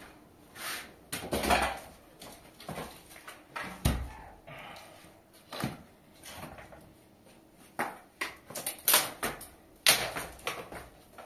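Sticks of firewood knocking and clattering as they are set into a mud-built hearth, with scattered sharp knocks, several louder, and footsteps and shuffling between them.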